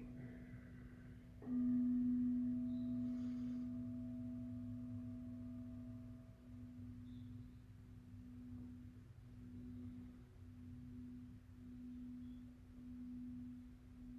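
Singing bowl struck about a second and a half in, over the ring of an earlier strike, holding one low, steady tone that slowly fades. In the second half it pulses about once a second.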